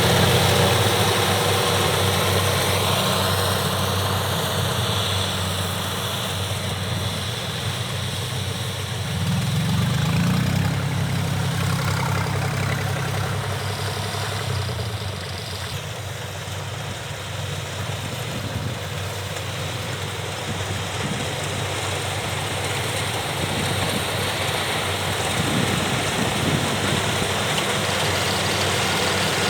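Kubota DC70 rice combine harvesters' diesel engines running steadily while harvesting. The sound swells about ten seconds in, dips a little around sixteen seconds, then builds again.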